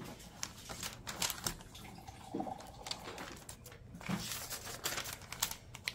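Paperback book being opened and its paper pages turned and handled: scattered soft rustles and crinkles of paper.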